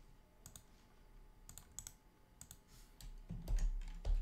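Computer keyboard keystrokes and mouse clicks: a few short, sharp taps spaced out, then a low hum and a louder knock in the last second.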